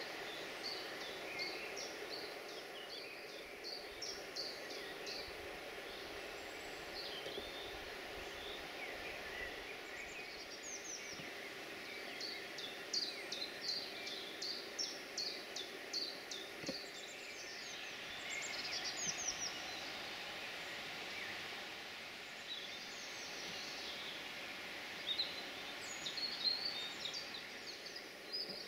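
Several songbirds singing and chirping in spring woodland, including a quick run of repeated high notes, about five a second, in the middle. A steady low background rush lies underneath.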